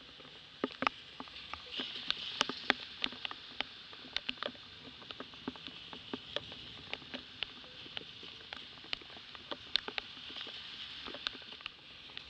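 Rain falling on a wet street: a steady hiss with many irregular, sharp ticks of drops striking close by.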